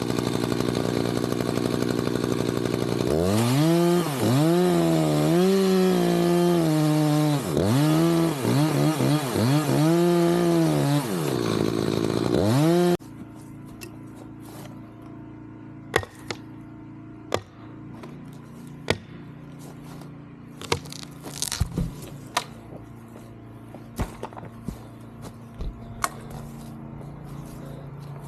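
Chainsaw running and being revved repeatedly while cutting pecan wood, its pitch dipping and recovering as the chain bites. About halfway through, the saw sound cuts off suddenly, leaving a quieter steady low hum with scattered sharp knocks.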